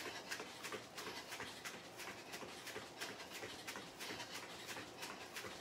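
Bare feet landing on a foam floor mat in quick high-knee running in place, an even patter of about four steps a second.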